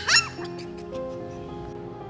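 A puppy gives a short, high yelp just after the start, over background music of held notes.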